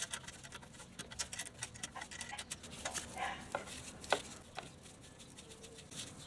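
Light, scattered metallic clicks and scrapes of a spanner working on a bolt of a Suzuki DR650's oil cooler guard, sped up.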